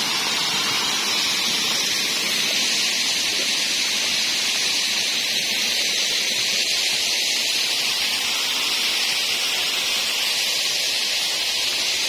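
Falling water from a small waterfall running low in dry weather: a steady, even hiss.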